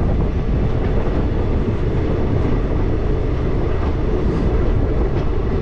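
Passenger train running, heard from on board: a steady, dense rumble of the carriage and wheels on the rails.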